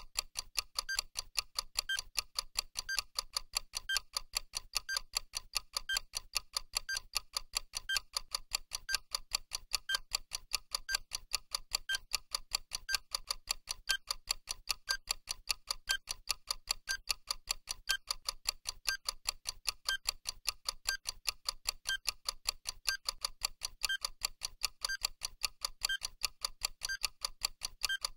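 Clock-ticking sound effect on a countdown timer: fast, even ticks several times a second, with a brighter tick about once every second.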